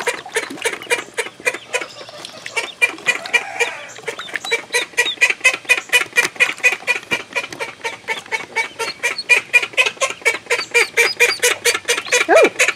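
Call ducks calling in a rapid, steady run of short quacks, about five a second.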